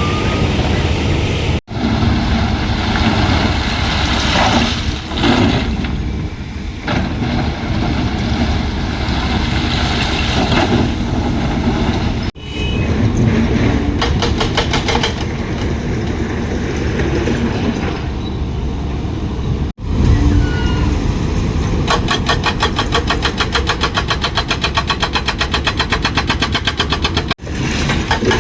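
Heavy construction machinery engines running loudly, in several stretches that break off abruptly and resume. At times a fast, even clatter runs over the engine noise.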